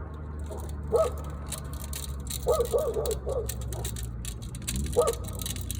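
A dog whining in short, high yips: one about a second in, a quick run of four or five in the middle, and one more near the end.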